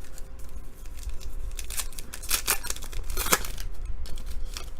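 A foil trading-card pack wrapper being torn open and crinkled by hand, a quick series of sharp tearing rasps in the middle.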